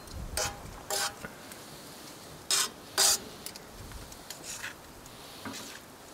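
Metal tongs scraping and clinking against a Muurikka steel griddle pan while stirring vegetables, a handful of short metallic scrapes with two louder ones around the middle, over a faint sizzle of frying.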